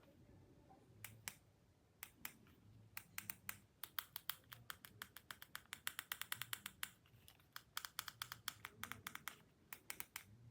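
Faint, rapid light clicking: a few single clicks, then long irregular runs of about ten clicks a second, pausing briefly about two-thirds of the way through.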